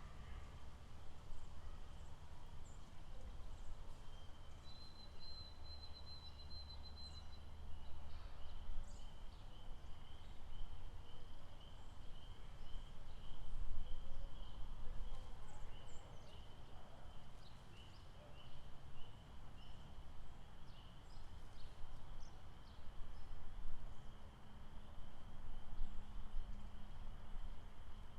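Outdoor nature ambience: a steady low rumble, scattered short bird chirps, and a high pulsing animal trill that runs through most of the middle, with a brief, higher trill about five seconds in.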